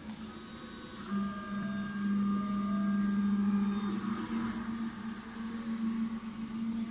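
MD 6L industrial large-format 3D printer's stepper motors running as the print head moves over the part: a steady low hum with higher whining tones that change pitch about a second in and again around four seconds.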